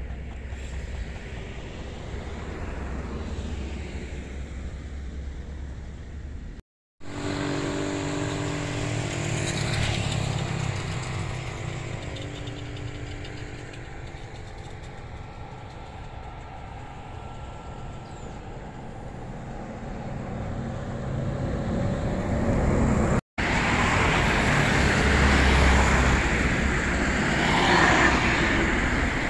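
Low wind rumble on the microphone, then a passing road vehicle's engine hum that fades away, then the louder rush of a jet airliner's engines on the runway, loudest near the end.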